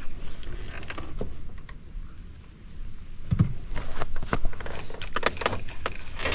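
Quick clicks and light knocks of a spinning reel and rod being worked through a cast and retrieve, with a dull thump about three and a half seconds in.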